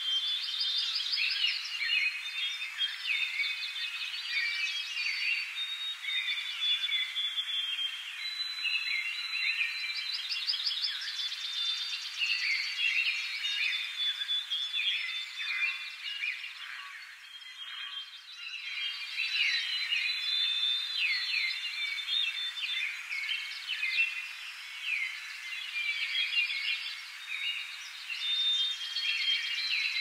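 Morning ambience of many small birds chirping and trilling over one another, with short thin high whistled tones among them; the chorus thins out briefly a little past halfway.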